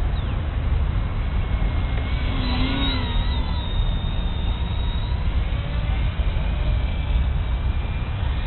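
Wind rumbling on the microphone, over the whine of an RC foam V-22 Osprey bicopter's electric motors and propellers rising and falling in pitch as the throttle changes, clearest about two to three seconds in.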